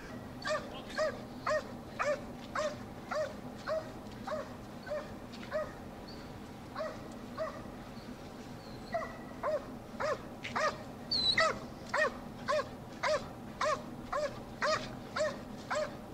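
Protection-trained Belgian Malinois barking at an attacker, about two barks a second, with a few seconds of sparser barks in the middle.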